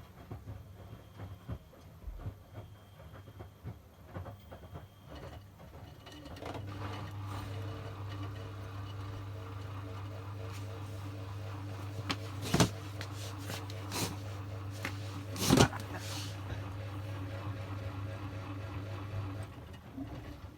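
Miele washing machine running: a steady low motor hum sets in about six seconds in and stops shortly before the end, with three loud knocks in the middle.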